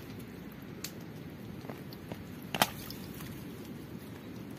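Hands digging in wet mud among stiff mangrove roots: a few small clicks and one sharp, woody crack about two and a half seconds in, over a steady low rustle.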